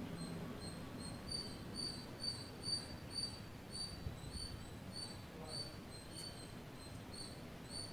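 Faint high insect-like chirps repeating two or three times a second, over a faint low background hiss.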